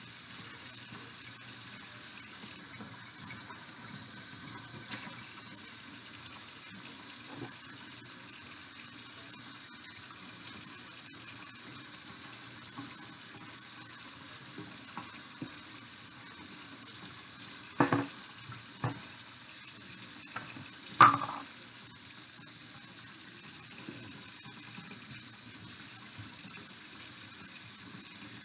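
Kitchen tap running steadily into the sink. A few sharp knocks come about two-thirds of the way through, the loudest a little after that.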